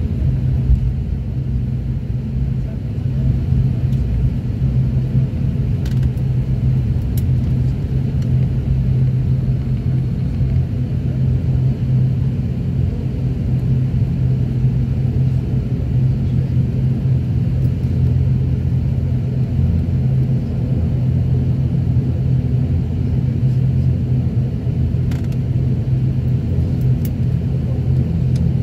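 Airliner cabin noise while taxiing: a steady engine rumble with a constant low hum, and a few faint ticks.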